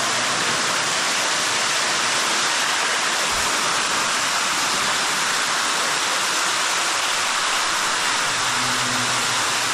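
Cave waterfall, water cascading and splashing in a steady, even rush.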